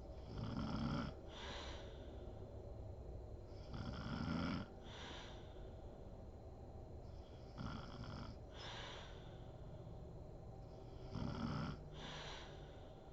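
A sleeping woman snoring steadily: four snoring breaths, about one every three and a half seconds, each a low rasping snore followed by a breathier puff of air.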